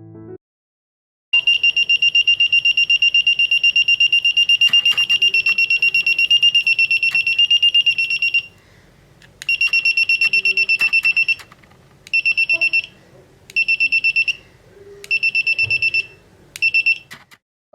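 Buzzer of a homemade door alarm sounding a loud, high, fast-pulsing beep, first for about seven seconds, then in five shorter bursts as it is switched off and on again. A few sharp clicks come in between.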